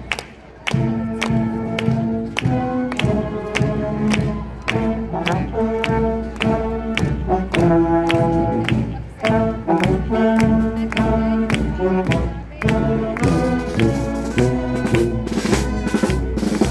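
Marching band playing a march as it passes: brass and saxophones with flutes over snare drums, bass drum and cymbals, on a steady beat. The music drops out for a moment just after the start, then comes back in.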